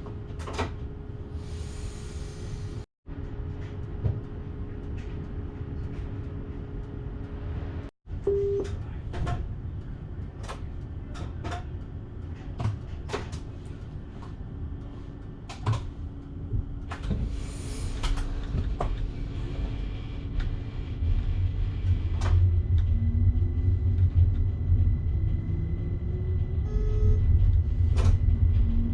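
Electric passenger train heard from the driver's cab: a steady low rumble with scattered clicks and knocks and two short hisses. About two-thirds of the way through, rising motor whines come in and the rumble grows louder as the train speeds up.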